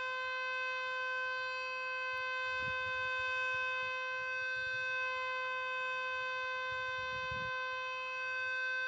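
Outdoor civil-defence warning siren sounding a steady tone at one fixed pitch, rich in overtones, as in a weekly siren test.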